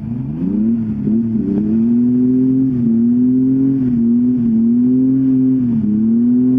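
Toyota 4Runner engine revving up and held at high revs under load while driving a rough off-road trail, heard from inside the cab. The revs climb sharply in the first second, then hold with small dips and recoveries.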